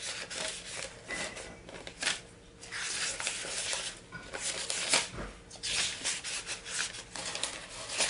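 Paper notebook pages rustling as gloved hands leaf through them, in irregular bursts.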